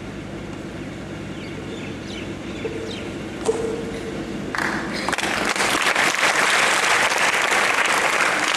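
A low steady rumble of a large hall, then an audience breaks into applause about halfway through, building quickly to steady loud clapping.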